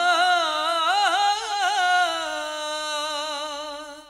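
A man's solo voice singing a naat unaccompanied, holding one long ornamented note: it rises at the start, wavers through quick turns, then settles and fades out near the end.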